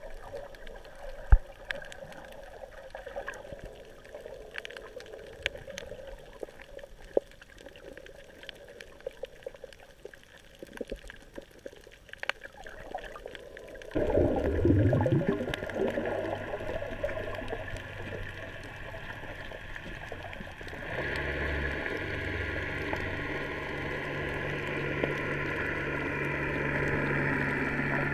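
Muffled underwater sound with sparse clicks and one sharp knock about a second in. About halfway it jumps to a louder rush with a rising low drone, settling into a steady engine hum that gets stronger past the three-quarter mark: a boat motor heard through the water.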